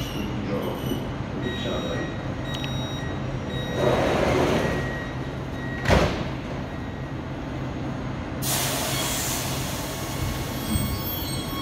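Siemens Inspiro metro train standing at a station with a steady low hum. A few short high beeps sound, the doors slide and shut with a sharp thud about six seconds in, and a hiss follows. Near the end a whine of several tones starts as the train begins to pull away.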